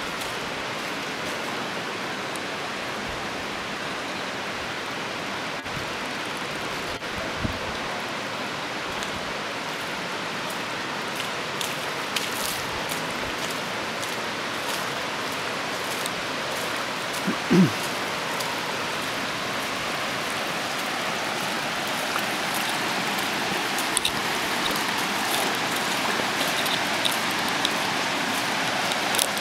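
Shallow creek water flowing steadily over sandstone slickrock, growing a little louder toward the end, with scattered faint clicks and one brief low thump a little past halfway.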